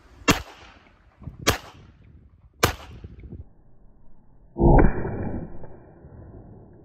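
Becker & Holländer Beholla .32 ACP semi-automatic pistol firing three sharp shots about a second apart, each trailing off in a short echo. About four and a half seconds in comes a louder, duller bang, the loudest sound, followed by a ringing tone that fades out.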